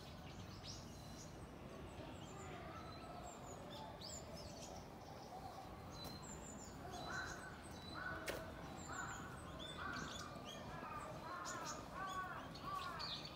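Outdoor birds chirping and calling in many short, quiet calls, growing busier about halfway through, over a low background hum.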